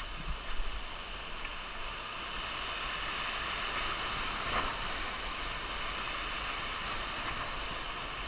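Whitewater rapids rushing steadily around an inflatable raft, with a single sharp click about four and a half seconds in.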